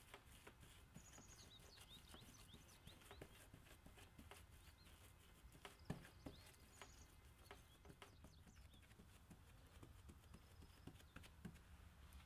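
Near silence: faint scattered taps and clicks, one a little sharper about halfway through, with faint short high chirps now and then.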